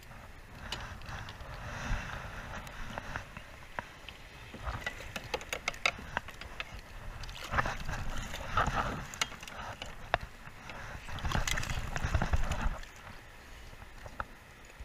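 Handling noises from unhooking a fish caught on a lure: a quick run of small clicks and knocks, then two longer bursts of rushing noise with low rumble, the louder one near the end.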